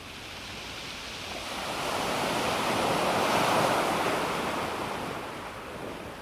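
A single small sea wave washing onto a pebble beach, swelling to a peak of hiss about halfway and fading away.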